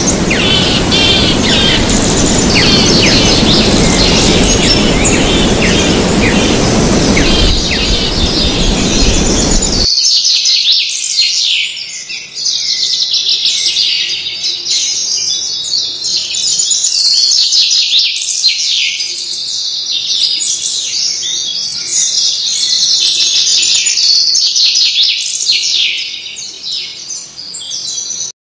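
Many small birds chirping and twittering rapidly. For the first ten seconds the chirps sit over a loud, even rushing noise. That noise cuts off suddenly, leaving only the birdsong, which stops abruptly at the very end.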